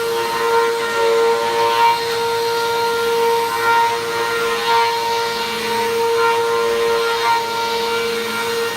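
Vacuum cleaner running over a rug, its motor holding a steady whine over a rushing hiss that swells and eases as it is pushed back and forth.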